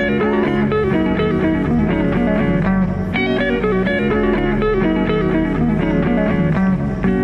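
Background music led by guitar, with many plucked notes over a steady lower part.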